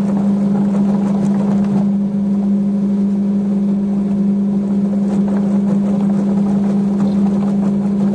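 Getra HR6's 950-watt electric motor running steadily as the machine, modified into a durian flesh separator, churns durian in its bowl, with a strong even hum.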